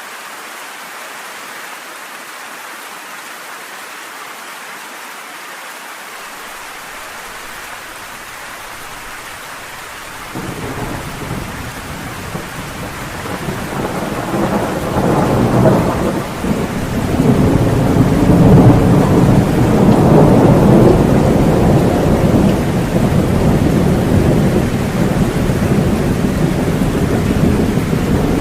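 Steady rain hiss, then about ten seconds in a long rolling rumble of thunder breaks in suddenly, grows louder and keeps rumbling through the rest over the rain.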